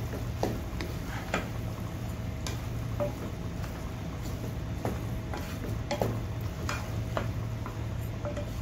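Wooden slotted spatula stirring minced mutton and chopped capsicum in a non-stick frying pan, scraping and knocking against the pan about once a second, over a faint sizzle of the frying mince.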